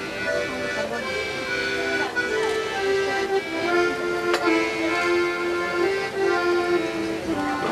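Small piano accordion playing a simple tune of held notes, moving from note to note every half second or so, with a single sharp click about four seconds in.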